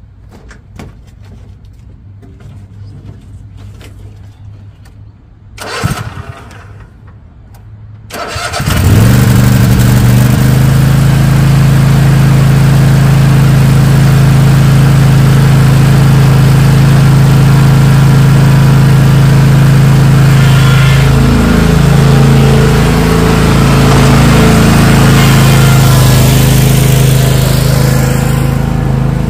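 Toro TimeCutter zero-turn mower engine starting about eight seconds in and running steadily. Its note dips and wavers for a few seconds past the middle as the mower starts moving.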